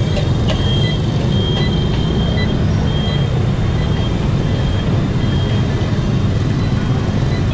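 Steady loud rumble of many motorbike engines and wind noise from riding along in a dense stream of scooters. Short, thin high beeps come and go over it.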